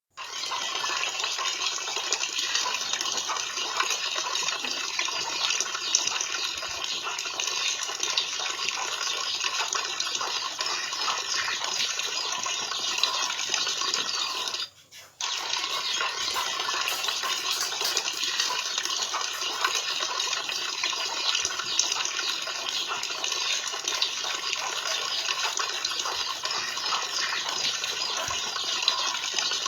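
Water running and splashing steadily for a parrot's bath; it cuts out briefly about halfway through.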